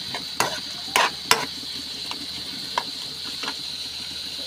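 A metal spoon scraping and knocking against a wok while stirring sliced onions and garlic frying in oil, over a steady sizzle. Several sharp knocks, the loudest within the first second and a half, then fewer and lighter ones.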